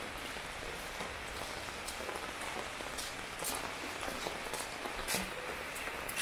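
Heavy rain falling steadily, a constant hiss with frequent sharp taps of single drops striking nearby surfaces.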